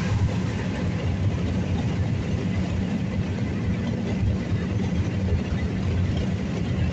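A car heard from inside its cabin: steady engine and road noise, even throughout, with no single event standing out.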